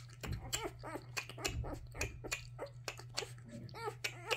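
A newborn puppy suckling at a feeding bottle's nipple: soft, irregular wet sucking clicks with small squeaks and whimpers in between.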